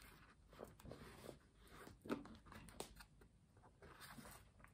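Faint handling of a paperback book: a few soft rustles and taps of its pages and cover as it is held open and turned, the loudest about two seconds in.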